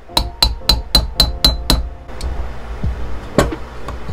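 Small hammer tapping a driver tool down over a valve guide to seat a new valve stem seal in a motorcycle-style cylinder head. There are seven quick, ringing metal taps at about four a second, then a pause and one louder single knock about three and a half seconds in.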